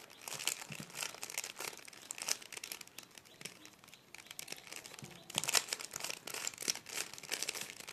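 Plastic Rubik's cube being turned layer by layer: a run of quick, irregular clicks and clacks, busiest about five seconds in.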